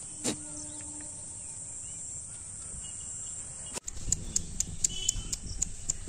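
Steady high-pitched insect drone with faint bird chirps. About four seconds in it cuts off abruptly and gives way to a quick run of sharp bird chips, about four a second, over low rustling.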